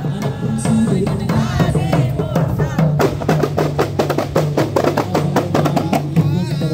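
Kompang, Malay hand-held frame drums, beaten by a procession troupe in a fast, dense rhythm of slaps.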